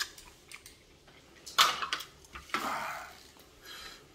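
A metal spoon scraping and clinking on a plastic plate of rice, with a few light clicks and two louder scrapes in the middle.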